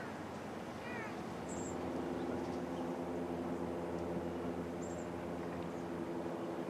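Hushed outdoor ambience: small birds chirping now and then, and from about a second in a steady low hum of several tones.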